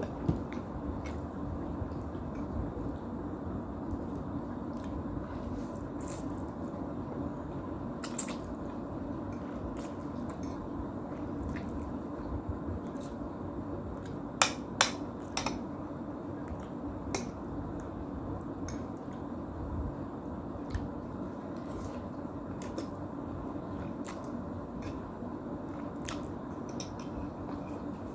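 Close-up eating sounds: wet, squishy chewing of instant noodles, over a steady low background hum. A few sharp clicks of a utensil against a dish, three of them close together about halfway through.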